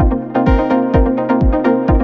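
Electronic background music with a steady kick-drum beat under sustained synth chords.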